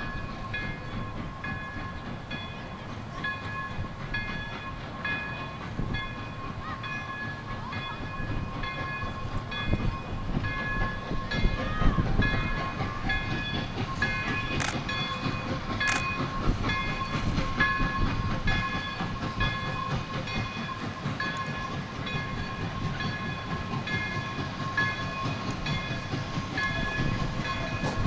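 Pere Marquette 1225, a Lima 2-8-4 steam locomotive, approaching with its train: a low rumble that swells a little before the middle. Over it a bell rings over and over, about once a second. Two sharp clicks, a second or so apart, come a little after the middle.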